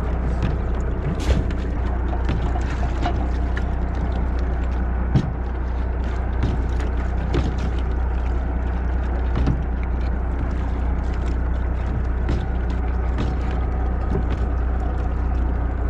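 Boat engine running steadily with a low hum, with scattered knocks and clicks, the sharpest about a second in and about five seconds in.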